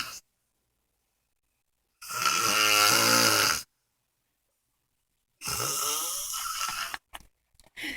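A man snoring loudly in his sleep. Two long snores come about three and a half seconds apart, the first the louder, each followed by dead silence. The tail of another snore falls at the very start, and short faint breath sounds come near the end.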